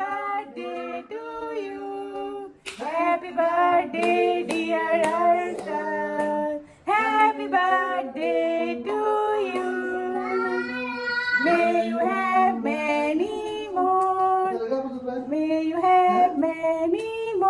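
Family members singing together off-key, a woman's and a child's voices among them.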